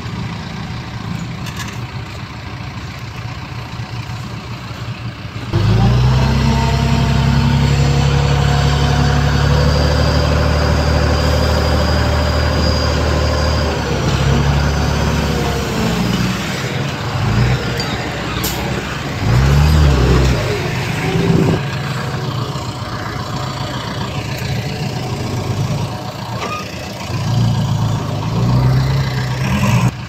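Heavy earthmoving machinery engines running. A loud, steady engine note comes in suddenly about five seconds in and holds for several seconds, then rises and falls in short revs.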